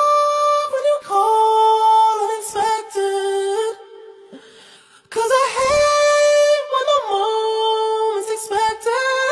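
Background music: a sung vocal holding long, drawn-out notes that step between pitches, with a brief quieter pause about four seconds in.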